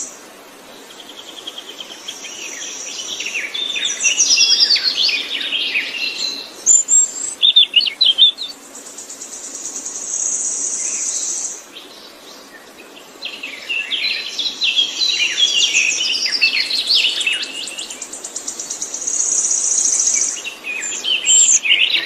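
A songbird singing long, varied phrases of rapid chirps and high buzzing trills, in two long bouts with a short pause near the middle.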